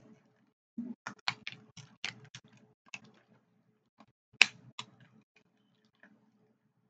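Snow crab leg shells cracking and snapping as they are broken open by hand and with a crab cracker. It is a run of sharp cracks and clicks lasting about four seconds, the loudest crack a little past the middle.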